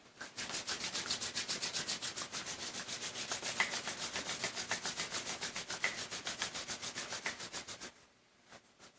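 Bare palms rubbed briskly together, a fast, even swishing of about six or seven strokes a second, stopping about eight seconds in.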